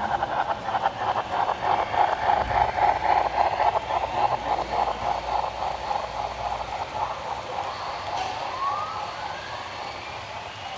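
Model freight train cars rolling along the track, their wheels clicking rapidly over the rail joints, loudest in the first half and then fading. Near the end a few short squeals rise in pitch.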